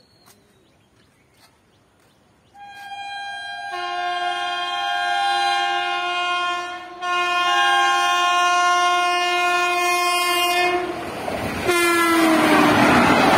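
Indian Railways electric locomotive sounding a long, several-note horn as the express approaches, held about eight seconds with a short break near the middle. Near the end a second blast drops in pitch as the locomotive rushes past, followed by the loud noise of the train's wheels and coaches going by at speed.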